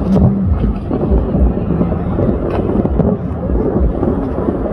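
Distant aerial fireworks bursting: a run of low booms at irregular intervals over a steady rumble.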